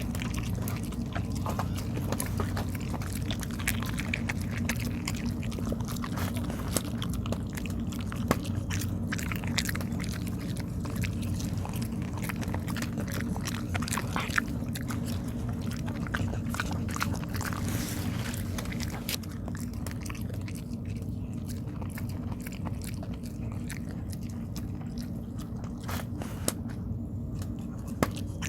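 A dog chewing and biting a rice cake (tteok), with irregular clicks of its jaws, over a steady low hum.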